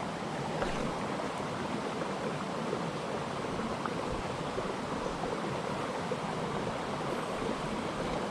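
Steady rushing of a jungle headwater stream.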